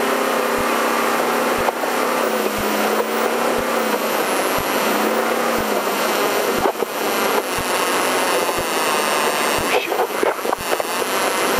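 Off-road race truck driving at speed, heard from inside its cab: a steady engine drone that dips in pitch a few times, under loud road and wind noise.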